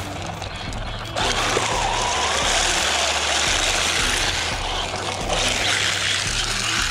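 Rock background music over a Traxxas Rustler 4x4 VXL RC car driving on wet asphalt on hard plastic 3D-printed drift tires, with its brushless electric motor running. About a second in, the sound becomes louder and fuller and stays that way.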